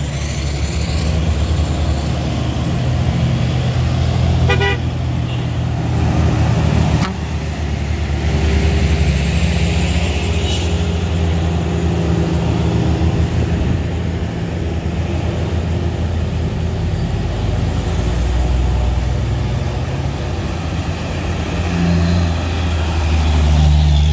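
Truck and car engines pulling up a steep grade, a steady low drone that swells near the end as a tanker truck passes close. A short horn toot sounds about four and a half seconds in.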